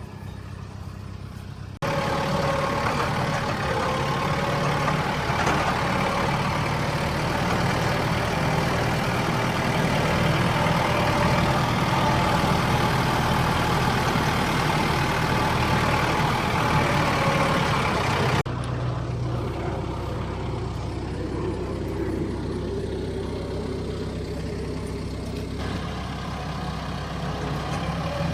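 Farm tractor engine running steadily while hauling a round hay bale. Its sound jumps abruptly louder about two seconds in and drops back abruptly around eighteen seconds.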